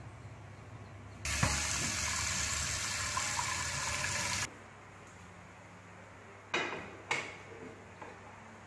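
Kitchen tap water running hard into an aluminium pot for about three seconds, then shut off abruptly. A couple of seconds later come two metal clanks as the pot is set down on the gas stove.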